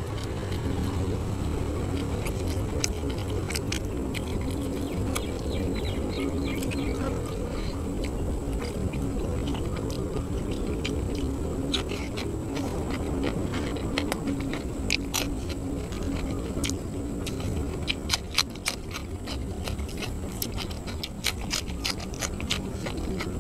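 Close-miked eating sounds of a man chewing grilled catfish, with many sharp wet mouth clicks and smacks that come thicker near the end.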